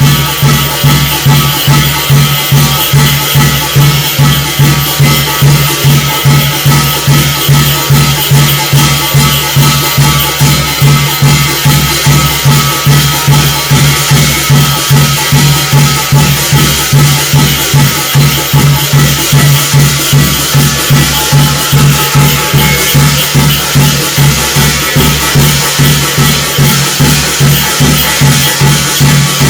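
Korean shamanic gut ritual music: a steady, driving percussion rhythm of drum strokes, with metallic ringing over it, at about two to three beats a second without a break.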